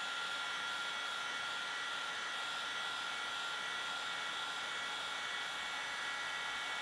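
Einhell electric heat gun running, a steady blowing hiss with a faint high whine from its fan and motor.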